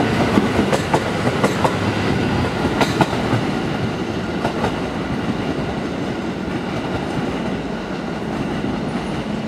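JR 285 series sleeper electric train pulling out: its wheels click over the rail joints several times a second during the first three seconds, then the clicking gives way to a steadier rumble as the train draws away.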